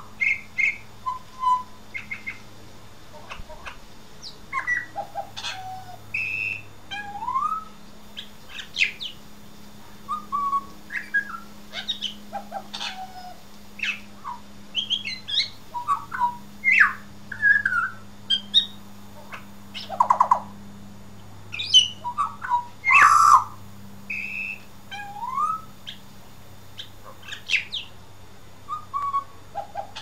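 Pied butcherbird song: short whistled notes and rising glides in quick, irregular phrases.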